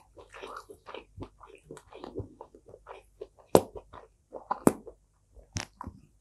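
Close-miked chewing of crispy fried food, a run of short wet crackles, with three sharp loud clicks in the second half.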